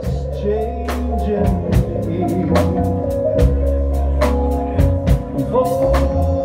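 Live band playing a slow song: a drum kit keeps a steady beat under electric bass guitar and keyboards, with a melody line bending between notes.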